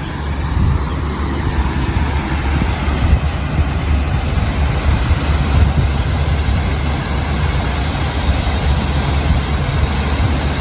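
Wind buffeting the microphone in a steady low rumble, over the even wash of sea water on a rocky shore.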